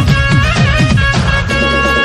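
Intro music with a steady beat: a held melody over quick, repeated falling bass notes.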